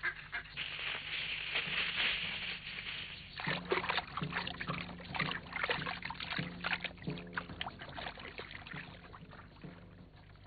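Cartoon sound effects of a snake sliding through grass: a dense rustling hiss. About three and a half seconds in it turns to splashing and swishing in water, many short splashes over a low repeating note, fading near the end.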